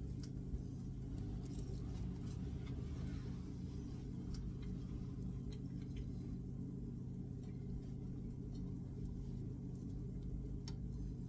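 Steady low hum of a kitchen fan, with a few faint ticks scattered through it.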